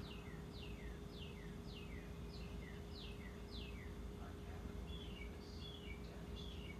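Faint bird calls: a run of about seven quick chirps, each falling in pitch, about two a second. From about five seconds in, shorter, higher chirps follow. A faint steady hum lies underneath.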